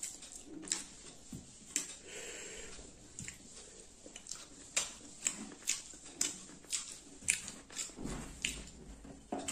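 Close-miked chewing and wet lip-smacking of a person eating rice and curry by hand, with sharp mouth clicks coming about once or twice a second.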